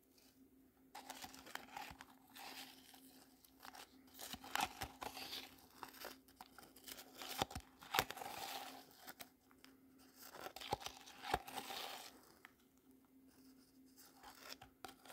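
Thin clear plastic cup and its wrapping crinkling and crackling as fingers handle it close to the microphone. The crackling comes in irregular bursts with sharp clicks, starting about a second in and dying away a few seconds before the end.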